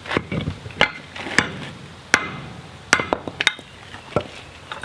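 Hammer blows on a steel drift being driven through the square hardie hole of a striking anvil to enlarge it. About ten sharp metallic strikes with short rings, irregularly spaced.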